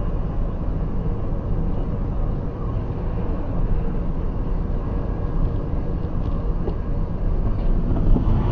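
Steady road and engine noise of a car driving at highway speed, heard from inside the cabin; it grows a little louder near the end.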